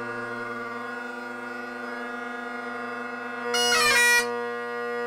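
Great Highland bagpipes with a sheepskin bag and a Shepherd blackwood chanter, playing steady drones under the chanter. About three and a half seconds in there is a loud, quick run of grace notes, then a held note over the drones.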